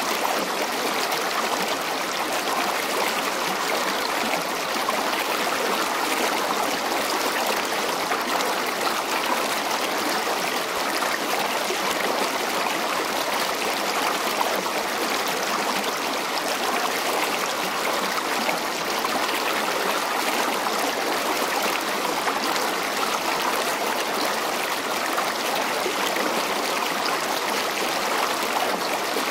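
Steady, even rushing noise with no distinct events, like flowing water or wind on the microphone.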